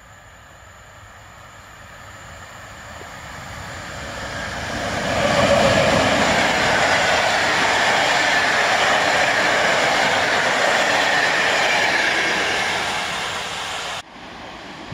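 EP07 electric locomotive hauling passenger coaches approaches and passes at speed: the rail noise builds over about five seconds, stays loud and steady while the coaches run by, then starts to fade. It cuts off abruptly near the end to a much quieter background.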